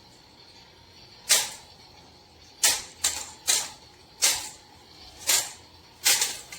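A toy lightsaber being handled, giving about seven sharp plastic knocks or clicks at irregular spacing, two of them close together about three seconds in.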